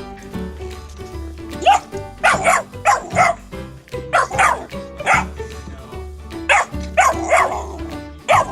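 A dog barking repeatedly in short groups of two or three barks, starting nearly two seconds in, over background music.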